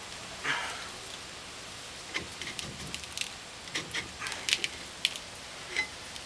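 Scattered metal clicks and clinks with a short scrape about half a second in: a rear disc brake caliper being handled and worked loose by hand.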